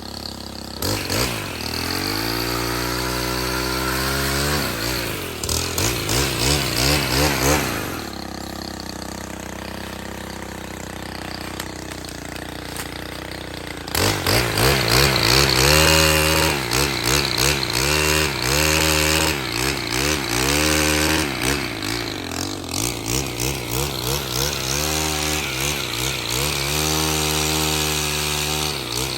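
Stihl HT 131 pole saw's small 4-MIX engine revving up and down as it cuts limbs. It settles to a steadier, lower speed for several seconds in the middle, then revs in quick bursts about once a second.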